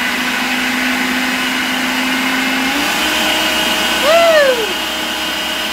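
Electric food processor motor running steadily, pureeing hot peppers and a lemon. Its pitch steps up a little near three seconds in, and a short rising-then-falling tone rides over it about four seconds in.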